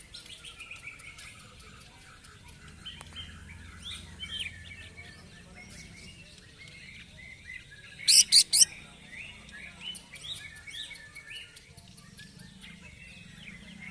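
Caged male cucak ijo (greater green leafbird) in full song: a fast run of high chirps, trills and short whistled notes, with a burst of four very loud, harsh notes in quick succession a little past the middle. The bird is fired up (emosi) after a singing contest.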